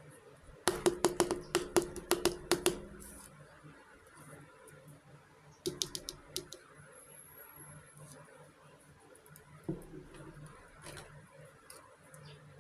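Small hard pieces clicking together in a quick run of about a dozen taps, each with a short light ring. A shorter run of clicks comes about halfway through, and a single click near the end, over a faint low hum.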